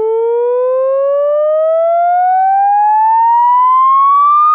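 A frequency-sweep test tone played through a speaker, gliding steadily upward in pitch with fainter overtones above it.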